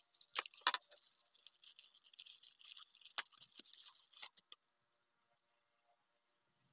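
Small plastic bags crinkling and rustling as they are handled, with a few sharp clicks mixed in; the crinkling stops about four and a half seconds in.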